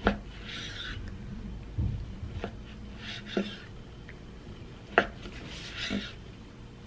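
Sashimi knife slicing raw beef on a plastic cutting board: short drawn cutting strokes through the meat, each ending in a sharp tap of the blade on the board, about five taps in all.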